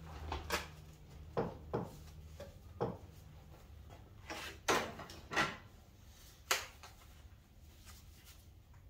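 Scattered light knocks and clunks of wood and fittings being handled at a miter saw station, about eight in all, the loudest around the middle, over a faint low hum.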